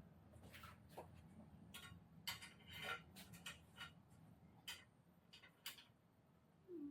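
Near silence broken by faint, irregular clicks and light taps, about a dozen over several seconds. A brief low falling tone comes right at the end.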